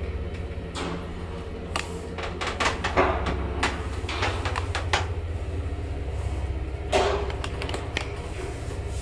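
1977 ZREMB traction elevator travelling upward at 1 m/s: a steady low hum from the machine and moving car, with scattered clicks and knocks from the car and shaft, one sharper knock about seven seconds in.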